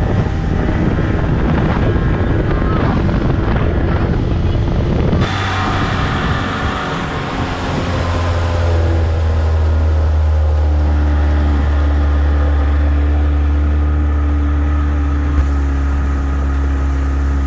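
Outboard motor of an Addictor mini-boat running at speed, with wind and water rushing over the microphone. About five seconds in the sound changes abruptly to a steadier, deep engine hum as the boat runs slowly.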